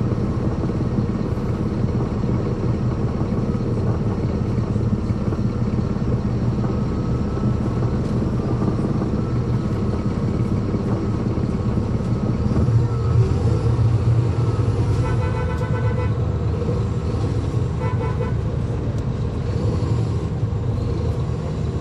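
A NABI transit bus's Caterpillar C13 ACERT diesel engine running under way, heard from inside the bus, growing louder about halfway through as it pulls. A vehicle horn honks twice in the second half, the first honk about a second long, the second shorter.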